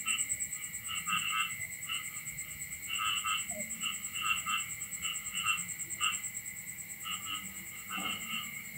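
Chorus of short animal calls, frog-like croaks that come in irregular clusters, over a steady high pulsing trill and a steady whistle-like tone.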